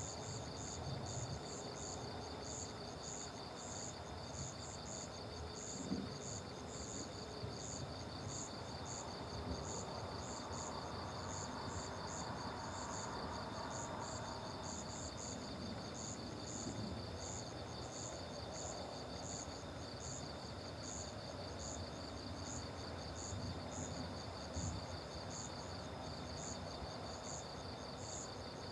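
Crickets chirping on a summer evening: one steady fast trill together with a higher chirp repeating about two to three times a second, over a low, even background noise. A brief knock sounds about six seconds in.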